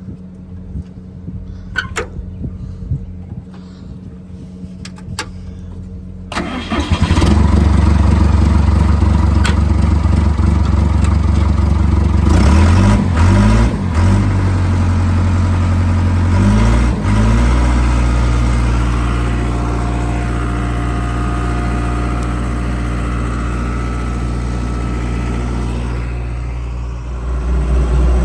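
Heavy-equipment diesel engine running quietly with a few clicks, then about six seconds in a much louder diesel engine comes in and runs hard. Its speed sags and recovers twice, then it runs steadily.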